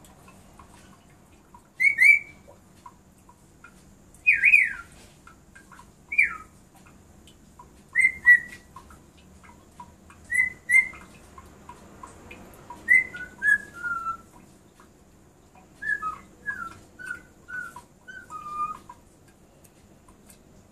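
Black-capped lory whistling: short clear notes, singly and in twos and threes, some sliding down in pitch, repeated every couple of seconds, ending in a quicker run of lower notes.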